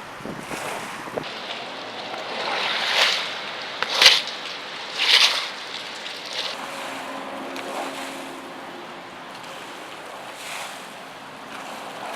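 Car driving through a flooded street, its tyres throwing up water in a steady wash, with three louder splashes about three, four and five seconds in.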